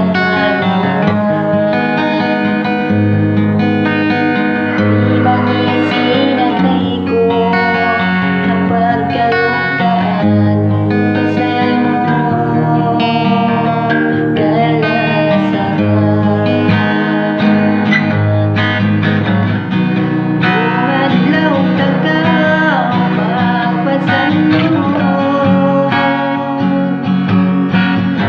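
Guitar-led music, with plucked strings playing throughout.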